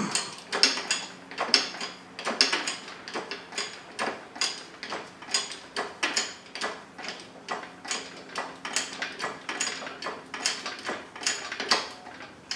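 Lifting gear clicking in a quick, uneven run of sharp clicks, about three a second, as the Subaru 2.5-litre engine is raised out of the engine bay.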